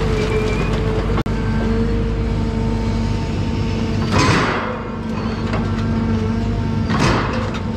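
John Deere 1010G forwarder's diesel engine running steadily with a constant hydraulic whine as the crane works. Two short whooshing hisses come about four and seven seconds in, with scattered light clicks throughout.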